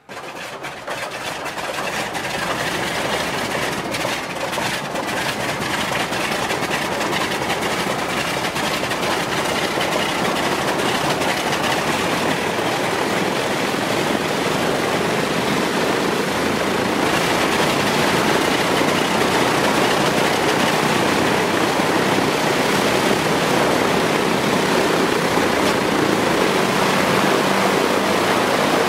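Aircraft piston-engine start-up sound played by the sound unit of a 1/72 scale Fairchild C-119G Flying Boxcar model. It cuts in suddenly with crackling in the first few seconds, grows louder as the engines come up, and settles into a steady run in the second half.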